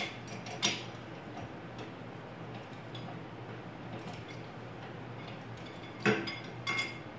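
Sharp metallic clicks and clinks from the shop crane's winch hardware and chain as the hanging tire is handled, with a steady low hum underneath. The loudest clicks come under a second in and twice near the end.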